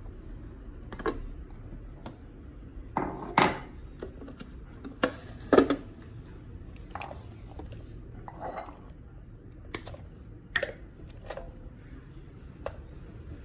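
Clattering of a coffee machine, mug and electric milk frother jug being handled on a stone countertop: about a dozen separate clicks and knocks at irregular intervals, the loudest about five and a half seconds in.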